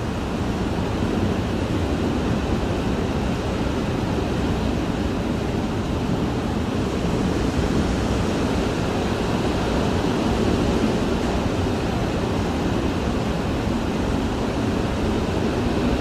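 Hurricane wind heard from inside a house: a steady, muffled low rush of wind against the building that swells a little now and then.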